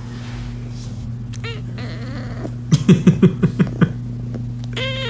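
Cat vocalising over a steady hum: a short chirp about a second and a half in, a rapid run of about eight loud pulses around three seconds, and a falling meow near the end.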